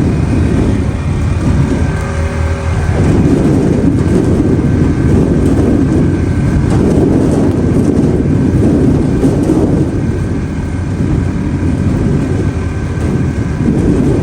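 Gusting wind of 30+ mph blowing against the walls and roof of an enclosed trailer, heard through a phone's microphone: a loud, continuous, deep wind noise that swells and eases.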